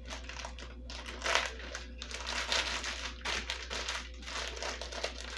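Plastic zip-top freezer bag crinkling and rustling in irregular bursts as it is pressed flat on the counter and its seal is pressed shut.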